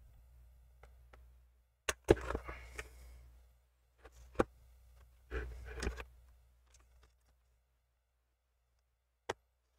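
Faint handling noises and a few sharp clicks from a small screwdriver working a screw into a MacBook Pro display hinge. There are two clicks about two seconds in, another near four and a half seconds, and a last one near the end, with soft rubbing in between.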